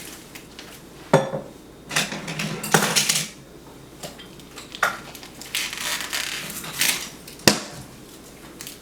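Handling of a gift-wrapped present: a series of short rustles and clattering knocks, with one sharp click late on.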